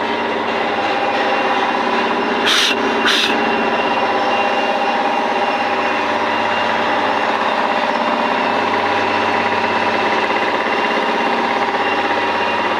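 Lego-type interlocking brick-making machine running with a steady machine hum, with two short hisses about two and a half and three seconds in.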